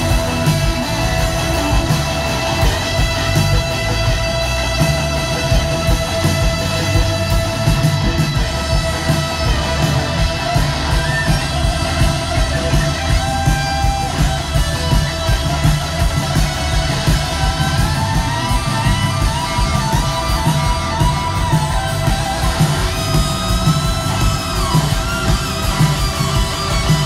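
Live blues-rock band playing loudly through a concert PA, electric guitar to the fore over bass and drums. In the second half, sliding, bending lead notes come through.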